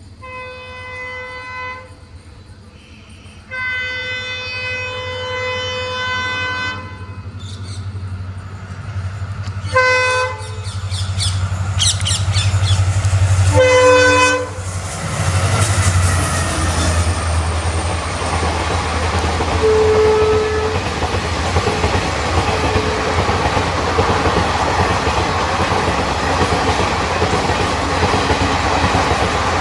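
Train horn blowing four times: a short blast, a longer blast of about three seconds, then two short ones. Then a train runs close past with a loud, steady rumble of wheels on the rails.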